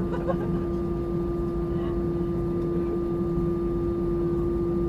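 Steady drone inside the cabin of an Airbus A320-200: engine and airflow rumble with a constant steady hum running through it, and faint voices in the background.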